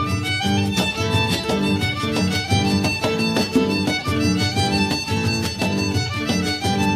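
Instrumental background music with a steady rhythmic beat.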